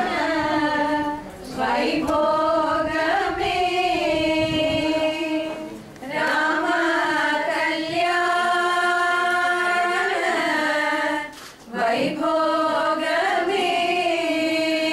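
A small group of women singing a song together, in long held phrases with brief breaks between them.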